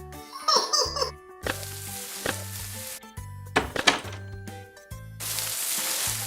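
Cartoon background music with a repeating bass line, overlaid with sound effects: short squeaky baby-like vocal sounds about half a second in, a few sharp knocks, and two stretches of hissing noise, the second starting about five seconds in.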